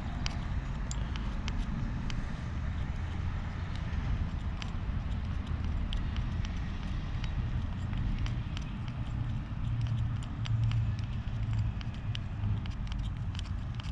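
Small scattered clicks and ticks of the reel's side plate and plastic gear being handled and wiped with a rag during greasing, over a steady low rumble with a faint hum.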